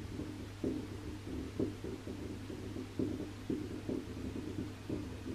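Distant fireworks going off as muffled low thumps, irregularly about two a second, over a steady low hum.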